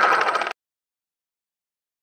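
A steady sound that cuts off abruptly about half a second in, followed by dead silence.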